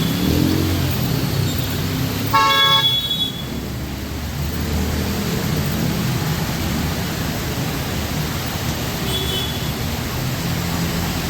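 A vehicle horn honks once for about a second, a little over two seconds in. It sounds over a steady low rumble of road traffic and an even hiss of rain.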